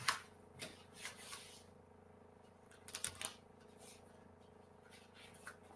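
Faint rustling and light taps of cardstock scrapbook pages being pulled out and handled, a few short rustles with the loudest right at the start and about three seconds in.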